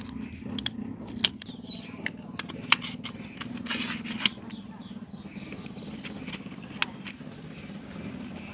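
Scraping and handling noise with several sharp clicks, over a steady low hum.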